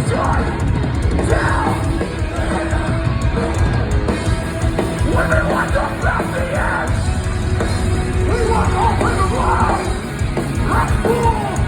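Live metalcore band playing loud heavy music, with yelled vocals over the band.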